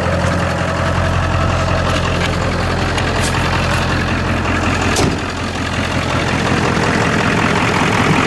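1997 Ford F-350's 7.3 L Powerstroke turbo-diesel V8 idling steadily, with a few sharp clicks over it.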